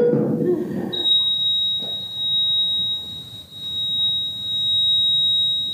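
A short low burst of sound at the very start, then a single continuous high-pitched electronic tone from about a second in, held at one steady pitch.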